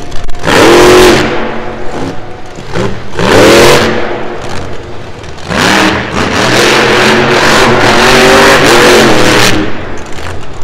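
Monster truck engine revving hard. The revs shoot up in short bursts about half a second, three seconds and five and a half seconds in, then stay held high for about four seconds before dropping off near the end.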